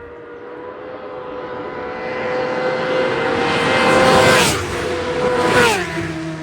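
Two racing motorcycles approaching at full speed on the TT road course and passing close one after the other, each engine's high steady note growing louder and then dropping sharply in pitch as it goes by, the second about a second and a half after the first.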